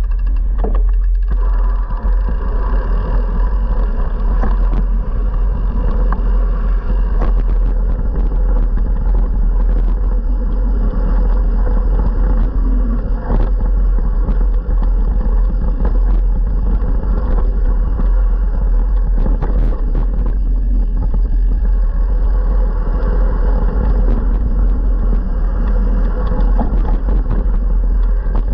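Steady low wind rumble on a moving action camera's microphone, with the rattle and crunch of a mountain bike riding a dirt downhill trail: short clicks and knocks scattered throughout.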